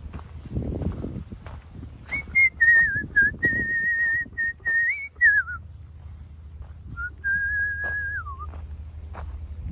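A person whistling a tune: a run of held, slightly wavering notes lasting about three seconds, then a shorter phrase near the end that slides down in pitch as it finishes.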